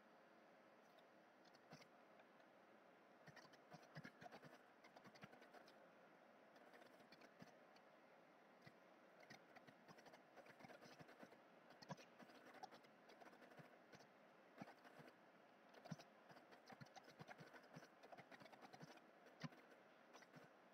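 Computer keyboard being typed on: faint, irregular runs of key clicks with short pauses between them, over a steady faint background hiss.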